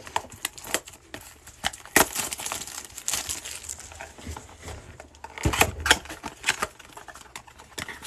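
Plastic shrink wrap crinkling as it is torn off a small cardboard trading-card box, then the box's cardboard flap being pried open. An irregular run of crackles and sharp clicks, loudest about two seconds in and again around five and a half to six seconds in.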